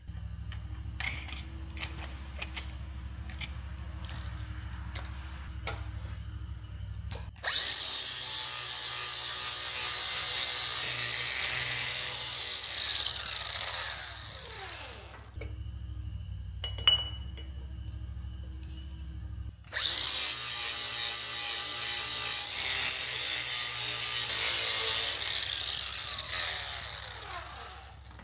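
Angle grinder cutting into a metal pipe clamped in a vise, in two runs of several seconds each, each ending as the disc winds down.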